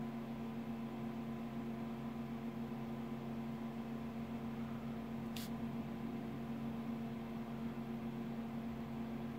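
A steady machine hum made of several even tones over a low hiss, with a brief high swish about five seconds in.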